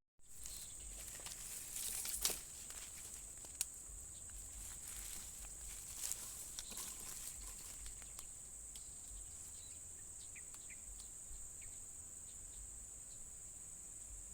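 Steady high-pitched drone of insects, with a few brief clicks and a short rustle in the first few seconds.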